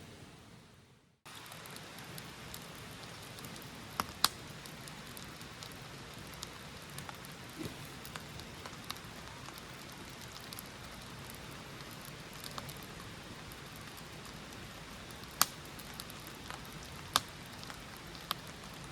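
Steady rain falling, an even hiss, with a handful of sharper drip-like ticks scattered through it. It drops away briefly about a second in, then returns.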